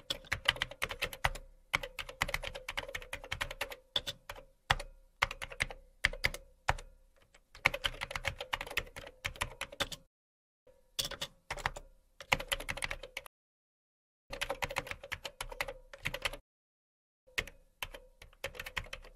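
Keyboard typing sound effect: rapid key clicks in runs of a few seconds, broken by short pauses, keeping time with on-screen text typing out letter by letter.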